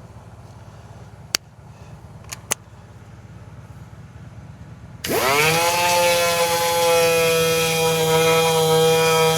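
A few sharp clicks, then about five seconds in a power sander starts up, its whine rising quickly to a steady pitch as it sands out curb rash on an alloy wheel.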